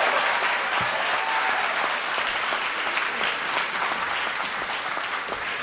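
Applause from many hands clapping, slowly fading.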